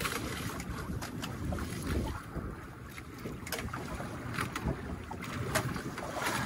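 Low rumbling wind noise on the microphone, with scattered small knocks and rubbing from the phone pressed against skin.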